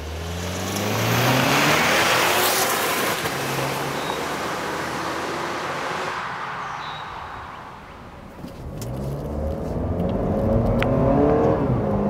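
2014 Cadillac ATS's 2.0-litre turbocharged four-cylinder accelerating past, its engine pitch rising as it comes in, then a loud rush of tyre and wind noise as it goes by, fading as the car drives away. About three seconds before the end, the engine note rises again under acceleration.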